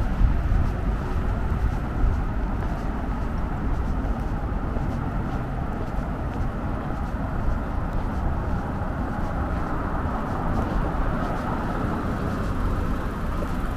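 Steady road traffic noise from cars and other vehicles on a busy city avenue, a continuous low rumble with no single event standing out.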